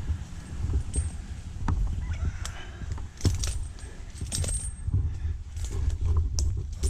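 Tree-climbing gear being handled up in a tree: scattered metallic clinks of carabiners and hardware, with rope and bark scraping and creaking over a continuous low rumble.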